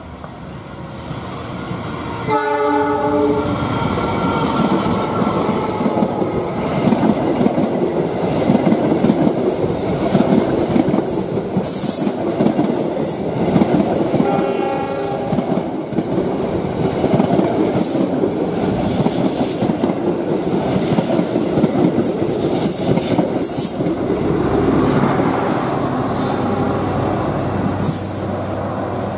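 Passenger train hauled by a diesel locomotive: one horn blast about a second long as it approaches, then the locomotive and carriages pass close by with a loud, dense rumble and clatter of wheels on rail. The noise eases to a lower rumble near the end as the train moves away.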